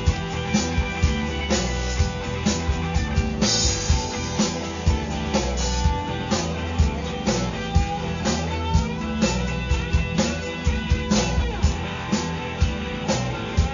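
Live rock band playing: electric guitars over a steady drum beat, with no singing.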